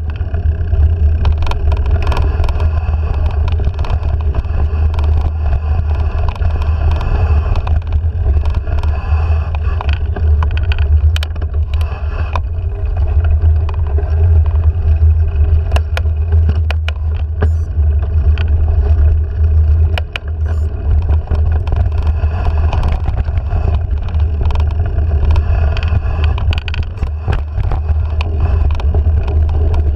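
Mountain bike rolling fast down dirt singletrack, heard from the handlebars: a loud, steady low rumble of wind on the microphone and tyres on dirt, with frequent rattles and clicks from the bike jolting over bumps.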